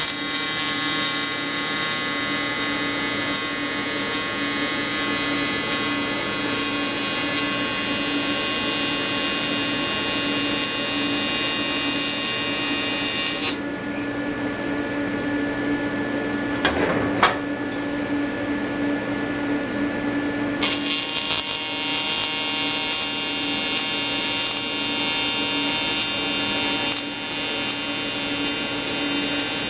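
AC square-wave TIG welding arc from an Everlast 325EXT buzzing steadily. For about seven seconds in the middle the buzz thins, with a couple of clicks, then it picks up again.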